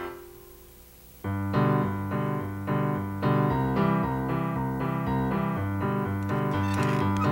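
Soundtrack music on piano or electric keyboard. A held chord fades away, then about a second in a bouncy tune starts, with bass notes stepping back and forth under repeated chords.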